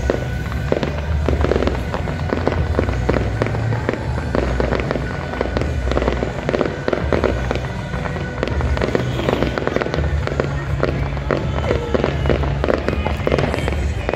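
Fireworks display: shells bursting and crackling in rapid, continuous succession.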